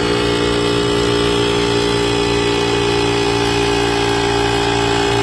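Portable air compressor built into a 4000A jump box running at a steady pitch, pumping up a car tyre toward its 36 psi set point.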